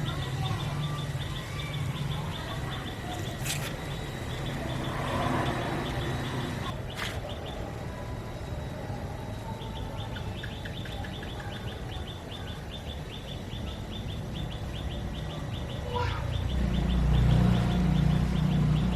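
Rapid, evenly repeated high chirps, about seven a second, pausing for a few seconds partway through, over a low rumble that swells near the end.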